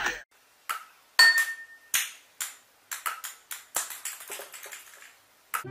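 A series of irregular sharp taps from a table-tennis ball striking a paddle and hard surfaces. One hit about a second in sets a wine glass ringing briefly.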